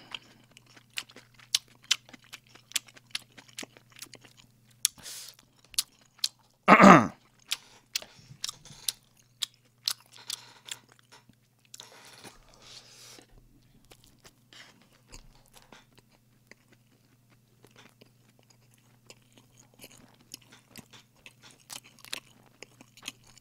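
Close-miked eating of shrimp fried rice: a spoon clicking and scraping against a plastic takeout bowl, with chewing and mouth clicks. There is one short loud vocal noise about seven seconds in, and a faint steady low hum underneath.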